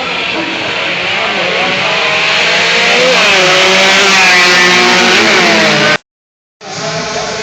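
Two-stroke Kawasaki Ninja 150 motorcycle engine revving hard under acceleration, its pitch climbing and then dropping back at each gear change. The sound cuts out for about half a second near the end.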